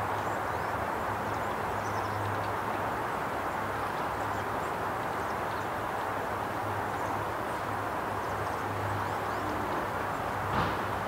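Steady outdoor background noise: an even rushing hiss over a low hum, with faint high ticks scattered through it and a single sharp knock near the end.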